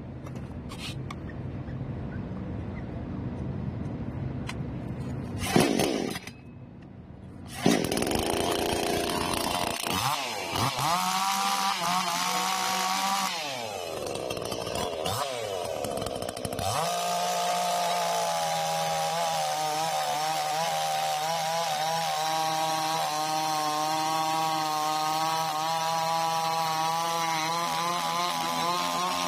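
Chainsaw engine running low and rough at first, dropping away briefly about a quarter of the way in. It is then revved up and down several times, and from a little past halfway it runs steadily at high speed.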